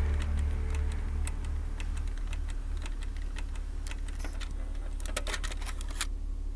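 Computer keyboard typing: scattered single key clicks, then a quick run of keystrokes about five seconds in, over a steady low rumble. Music fades out at the start.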